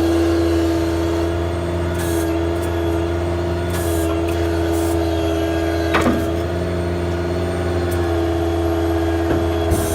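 Ford F-550's V10 gas engine running with its PTO-driven hydraulic pump engaged, giving a steady whine, while the hydraulic outriggers are worked. Several brief hisses and a single knock about six seconds in.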